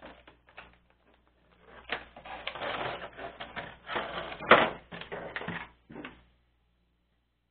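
Clear plastic packaging crinkling and rustling in irregular bursts as it is handled, with small plastic toy pieces clicking on a tabletop; the handling noise stops about six seconds in.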